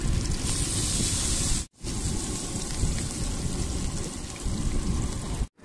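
Hot oil sizzling and bubbling in a large iron kadai as marinated pieces are deep-fried; the sizzle is brightest in the first second or so, when pieces go into the oil. The sound drops out briefly twice.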